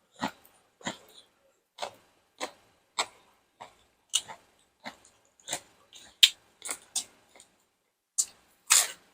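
Close-miked chewing of crunchy food, sharp crisp crunches at about two a second, with a short pause about seven and a half seconds in and the loudest crunches near the end.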